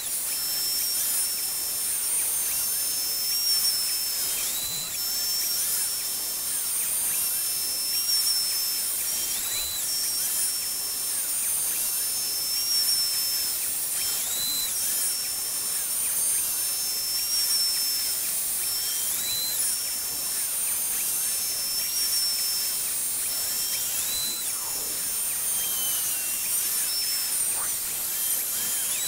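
The Openbuilds Hog CNC router's spindle milling an aluminium plate with a small end mill: a steady high whine over a constant hiss. A tone steps up briefly and back down about every five seconds as the cutter works around the part.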